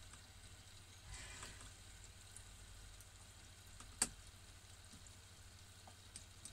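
Beef croquette deep-frying in oil at 190 °C in an electric deep fryer: a soft, quiet bubbling sizzle with a short flurry of crackling about a second in and one sharp pop about four seconds in, over a low steady hum.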